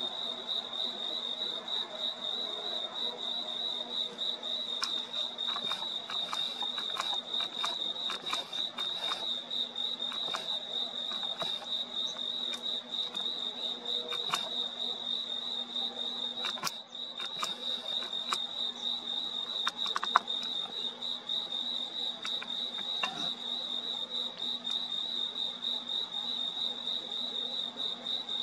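Crickets trilling steadily, a high pulsing chorus that never breaks. Underneath runs a faint low hum, with scattered soft clicks.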